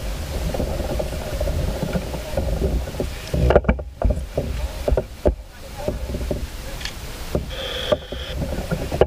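Wind rumbling on the microphone of a kayak-mounted camera on calm water. Several sharp knocks and splashes come in a cluster around the middle, like a paddle against the hull and in the water.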